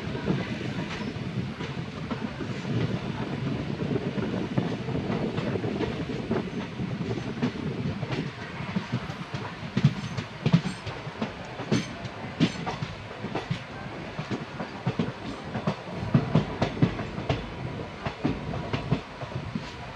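Train running along the track: a steady rumble with the wheels clicking and clacking over the rails, the clacks coming more often from about halfway through.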